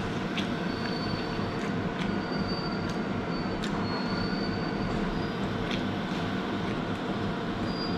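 Cutlery clinking lightly on a plate a handful of times over a steady background hum.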